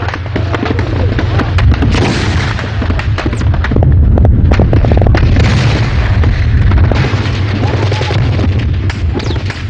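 Battle sounds: rapid gunfire and repeated booms of heavy weapons, dense and continuous, over a steady low rumble.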